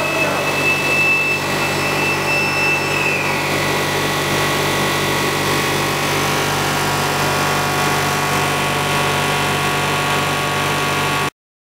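Blown film plant running: a steady mechanical drone with several steady whining tones. A higher whine drops slightly and fades about three seconds in. The sound stops abruptly near the end.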